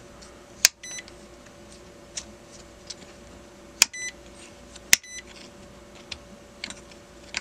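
Rotary range switch of a Uni-T UT61E multimeter clicking through its detents as it is turned, its contacts freshly cleaned of corrosion. The meter gives three short high beeps as the switch lands on new ranges, each with a sharp click, with fainter ticks from the switch in between.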